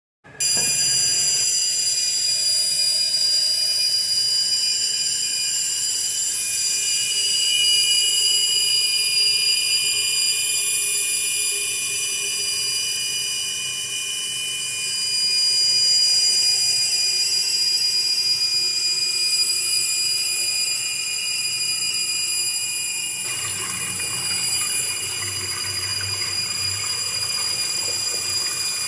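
Toilet cistern fill valve (ballcock) squealing as water flows through it: a piercing, steady high-pitched whistle made of several shrill tones, with water rushing more loudly from about 23 seconds in. The shriek is the sign of a faulty fill valve that fails to shut off, so water keeps running into the bowl.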